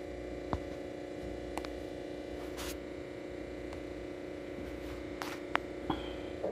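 A steady electrical hum made of several low tones, with a few short clicks along the way. The hum cuts off suddenly at the end.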